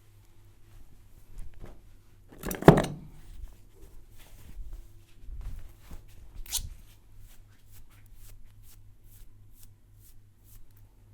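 Barber's hands working during a head and body massage: light rubbing and small ticks, with one loud, sharp hit about two and a half seconds in and a second, smaller one about six and a half seconds in.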